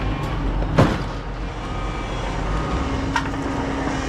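A vehicle engine running steadily, with a single sharp knock about a second in and a lighter click near the end.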